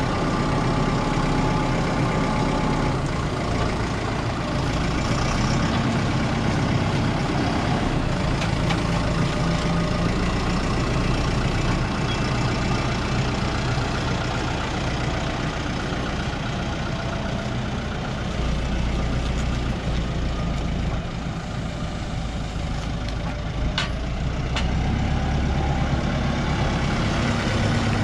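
Fendt tractor diesel engine running, its pitch shifting a few times as the revs change. A brief sharp click a few seconds before the end.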